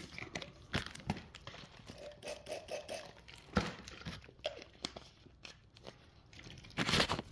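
Scattered scrapes, taps and crinkling of painting materials being handled and worked on a canvas, with one louder swish about seven seconds in.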